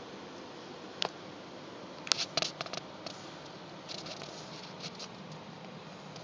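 Wet smacking and clicking mouth sounds of someone licking and sucking on a popsicle: a single click about a second in, a quick run of smacks around two seconds in, and softer ones later.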